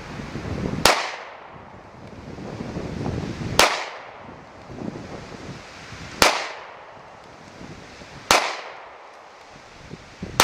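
Beretta Nano 9mm pistol firing single shots: four sharp cracks spaced about two to three seconds apart, each with a short ring-out, and a fifth right at the end. Wind buffets the microphone between shots.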